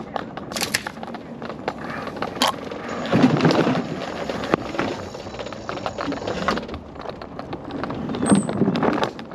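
Electric mobility scooter rolling over a wooden footbridge, its wheels rattling and knocking across the planks for a few seconds in the middle, with lighter clicks and bumps from the scooter on the concrete path before and after.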